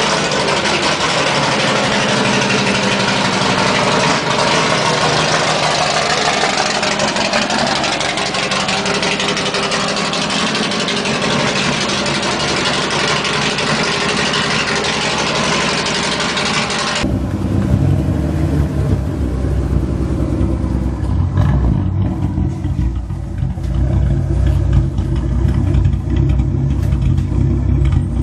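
Chevrolet Opala engine rumbling loud through its exhaust. The first stretch is harsh and hissy; about two-thirds of the way in the sound changes abruptly to a deep, steady rumble.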